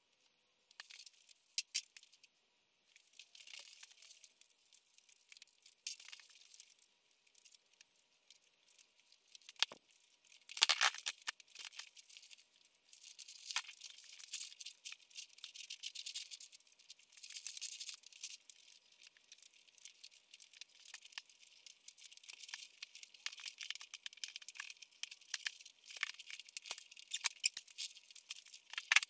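Vinyl seat upholstery being pulled down over the foam of a bench-seat back: irregular rustling and scraping as the cover is handled and worked into place, with a louder scuff about ten seconds in.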